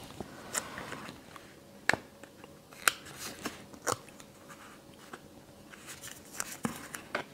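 Paper embellishments handled by hand: a scattered series of light, sharp clicks and taps with faint paper rustle, as a die-cut flower sticker is peeled from its backing and pressed onto a small cardstock pocket on a wooden table.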